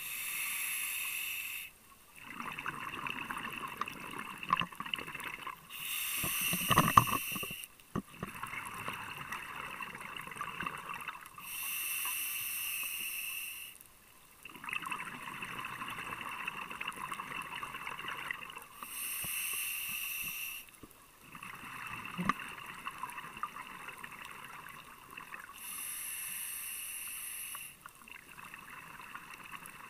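Scuba diver breathing through a regulator underwater, about five breaths in a slow, regular rhythm. Each breath is a steady hiss of about two seconds from the demand valve on the inhale, then a longer gurgling rush of exhaled bubbles.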